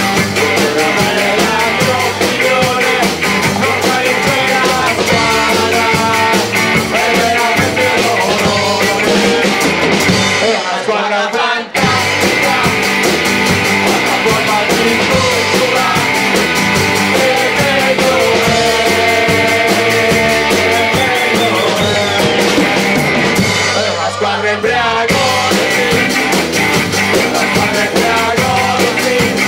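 Live rock band playing a song: drum kit with cymbals, electric and acoustic guitars, bass and sung vocals. Twice the cymbals and drums drop out for a moment, about ten and twenty-four seconds in, while the rest of the band plays on.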